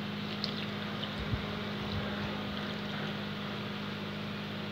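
Steady hum and whoosh of a small electric fan running, with a faint knock about a second in.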